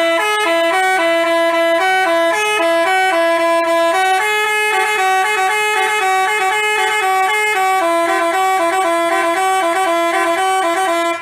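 Telolet basuri musical bus horn playing a rapid tune, two notes sounding together and stepping up and down, without a break until it cuts off abruptly.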